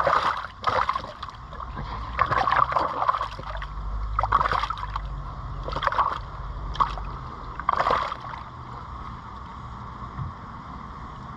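Water splashing and sloshing in short bursts, about six in the first eight seconds, then settling, over a steady low rumble.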